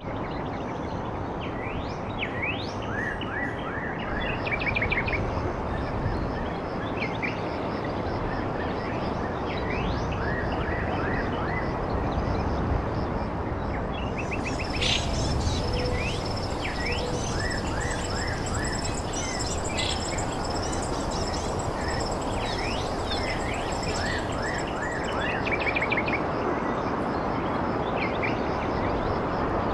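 Dawn chorus of small birds: many short, high, rising chirps, repeated over and over against a steady rushing background noise. About halfway through, a continuous high-pitched trill joins in for roughly ten seconds.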